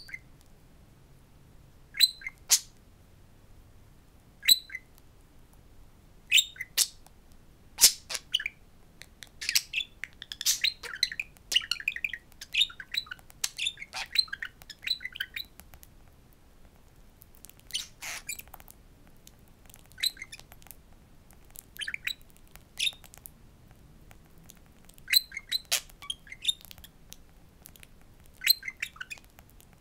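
Budgerigar chirping and chattering in short clusters of sharp clicks and chirps, separated by gaps of a second or two, busiest in a run of rapid chatter in the middle.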